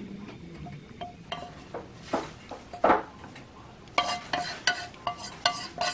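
Kitchen utensil handling against dishware: a couple of soft scrapes, then from about four seconds in a run of sharp ringing clinks, about three a second, all at the same pitch, like a metal utensil tapping repeatedly on a pan or plate.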